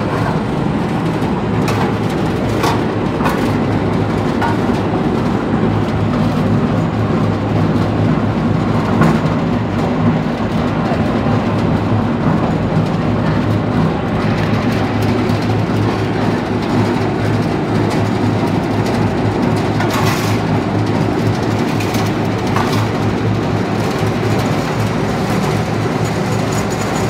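Straw briquette machine running as it presses straw into briquettes: a steady, loud mechanical drone with a low hum of several tones. Occasional sharp knocks and clanks come through, the loudest about two-thirds of the way in.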